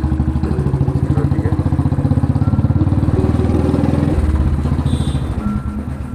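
Motorcycle engine running with an even, rapid exhaust pulse. The engine note changes about four seconds in.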